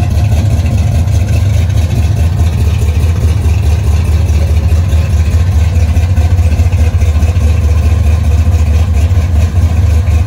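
1966 Chevrolet Chevelle's engine idling steadily, a loud, even, low exhaust sound.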